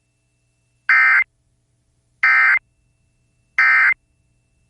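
NOAA Weather Radio Emergency Alert System (SAME) end-of-message data bursts: three short identical digital chirps about a second and a third apart, the signal that closes the tornado warning broadcast.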